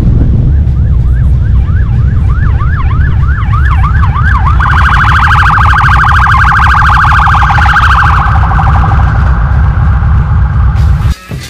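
Police car siren sounding over the steady low rumble of motorcycle engines and wind on the move. It sweeps up and down, faster and louder over the first few seconds, then switches to a rapid warble for several seconds before fading.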